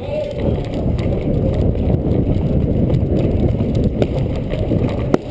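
Rough low rumble of movement and buffeting on a body-worn GoPro camera, with a couple of sharp clicks in the last second and a half.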